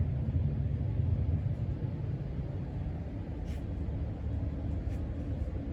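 1983 Casablanca Panama 5 ceiling fan running steadily at a middle speed, a low motor hum with the rush of the turning blades. Two faint ticks come through, about halfway and near the end.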